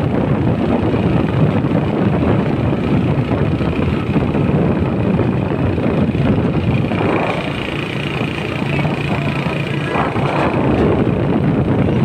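Steady rumble of a MAN heavy-haul tractor truck's diesel engine and tyres as it drives along towing a loaded low-loader, mixed with wind noise on the microphone.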